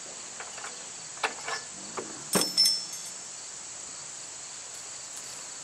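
A few short metal knocks and one sharp ringing clink about two and a half seconds in, from the steel pins of a tractor's front-loader bucket mount being worked loose, over a steady high chirring of crickets.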